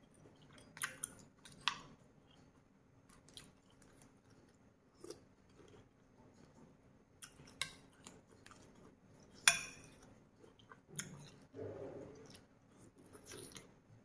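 Close-miked chewing and lip smacking as a woman eats wet, spicy food with her hands, picked up by a clip-on lapel microphone. Scattered sharp wet smacks and clicks, the loudest about two-thirds of the way in.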